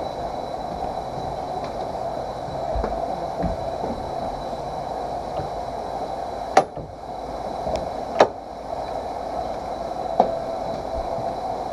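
Roller coaster car running along its track before the first drop: a steady mechanical hum with three sharp clicks spread through the second half.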